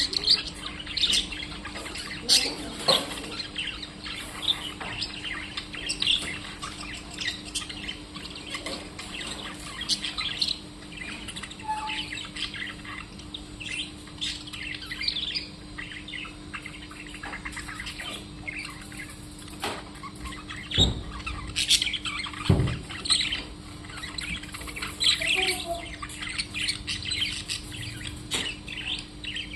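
Small birds chirping and squawking, with many short, rapid calls throughout. A steady low hum runs underneath, and two dull thumps come about two-thirds of the way through.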